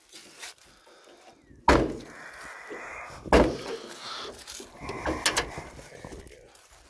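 Heavy steel door of an old car banging shut twice, about a second and a half apart, with metal scraping and rattling around the bangs.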